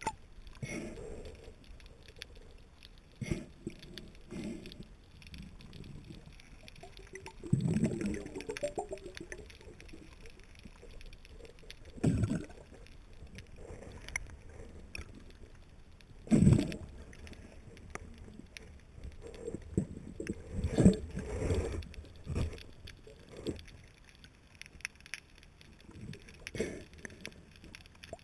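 Muffled water sloshing heard through a GoPro HERO 2's waterproof housing just under the sea surface, rising into louder surges of water noise several times at irregular intervals.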